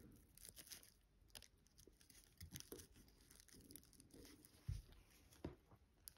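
Faint, scattered small clicks and taps of watchmaker's tweezers and tiny metal parts being handled on a watch movement, with one slightly louder soft knock about three-quarters of the way through.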